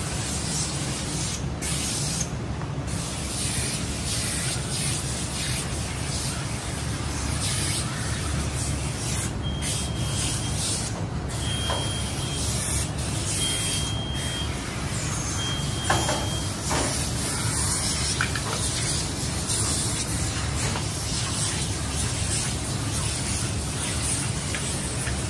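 Steady hiss of a hose-fed steam iron being worked over tent canvas, over a low steady hum. Around the middle come four short high beeps, a couple of seconds apart.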